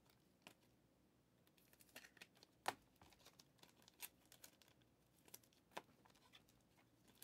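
Football trading cards and pack wrapper being handled: faint crinkling and scattered soft clicks and taps as cards are slid and set down, the sharpest about two and a half seconds in.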